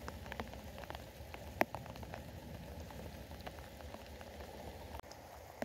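Rain pattering close by, with scattered raindrop ticks (one sharper tick under two seconds in) over a steady low rumble.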